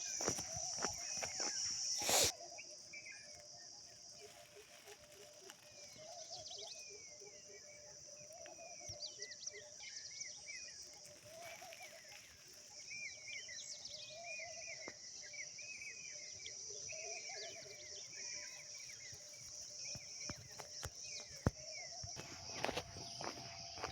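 Rural morning chorus: a steady high insect buzz with many birds chirping in short, repeated calls. Footsteps on a road in the first couple of seconds end with a loud knock, and steps start again near the end.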